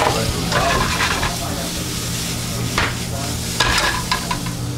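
Chopped lobster meat sizzling as it sautés in a frying pan, with scattered short clicks and scrapes from the pan being worked. A steady low hum runs underneath.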